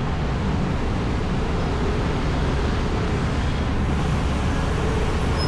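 Steady road traffic noise, a constant low rumble and hiss.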